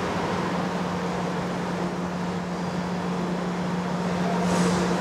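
Reid surface grinder running: a steady machine hum with one constant low tone, and a short hiss about four and a half seconds in.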